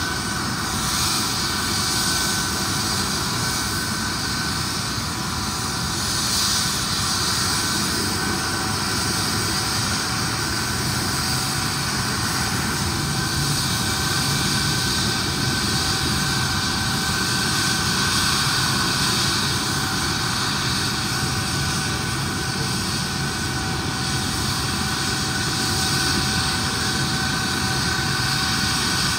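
MD900 Explorer helicopter's twin turbine engines running steadily: several high steady whining tones over a constant rush.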